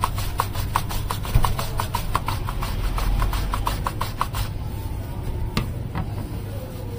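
Potato pushed back and forth over a julienne mandoline slicer, about three scraping strokes a second, stopping about four and a half seconds in; a single knock follows.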